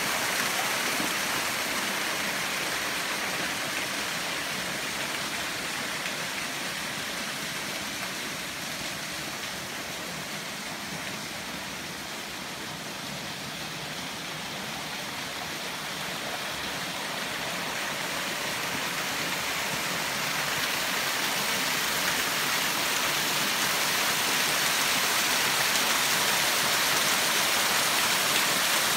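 Small waterfall and stream splashing over rocks: a steady rushing of water that softens a little in the middle and grows louder over the last few seconds as the falls come closer.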